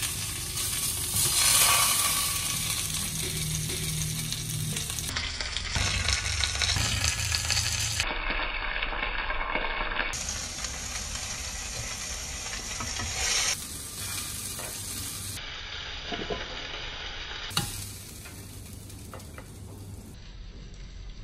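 Food sizzling as it fries in a hot pan and is stirred, the sizzle changing abruptly several times.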